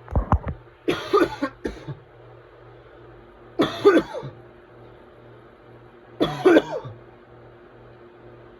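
A person coughing in a fit: three bouts about two and a half seconds apart, each a quick run of several coughs, with a few low thumps at the very start. The uploader calls it whooping cough.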